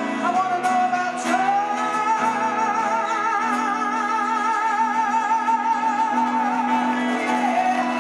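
Woman singing live with a band, acoustic guitar backing her; about a second in she holds one long note with vibrato for several seconds.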